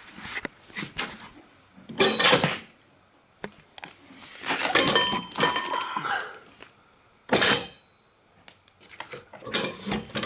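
Metal clattering and knocking in several separate bursts, some with a brief ringing tone, as metal parts are handled and moved about.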